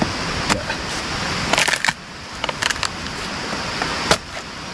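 Areca palm trunk being split open with a blade, giving a scattering of sharp knocks and cracks, the loudest near the end, over a steady background hiss.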